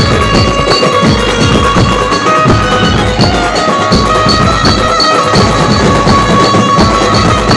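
Loud dance music with a steady percussive beat.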